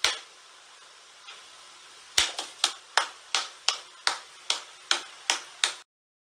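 A run of about ten sharp clicks, roughly two to three a second, after a couple of seconds of faint hiss; the sound cuts off suddenly near the end.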